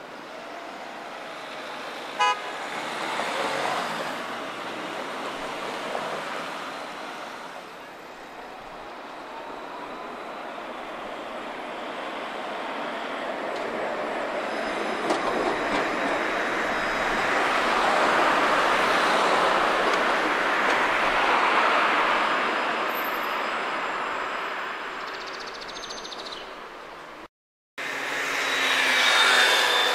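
Alstom Citadis tram running on grass track. Its rolling and motor noise swells as it passes and then fades. A short horn toot sounds about two seconds in. Near the end the sound cuts out for a moment, then another tram's running noise comes in with a thin high whine.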